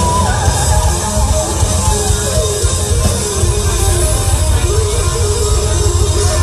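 Live amplified rock band playing. An electric guitar plays a lead line with a wide vibrato note about half a second in, over heavy, steady bass.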